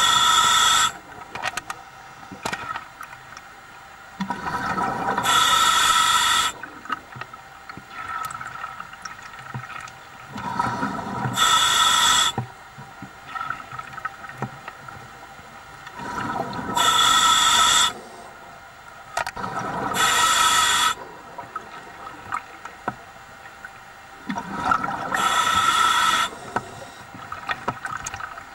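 A scuba diver breathing through a regulator underwater: a loud hiss with each breath, about every five seconds, with bubbling of exhaled air between the breaths.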